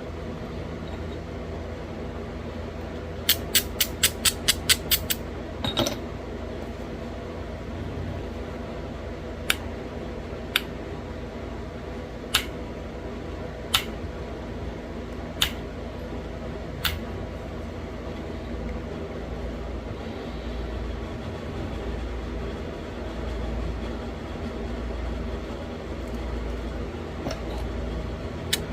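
Sharp stone clicks from pressure flaking a thin flake into a small bird point: a quick run of about nine clicks a few seconds in, then single clicks every second or two as flakes come off. Under them runs a steady low hum.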